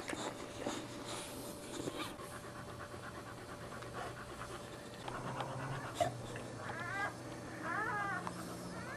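Boxer dog panting and licking her newborn puppies, with a few short whines that rise and fall near the end.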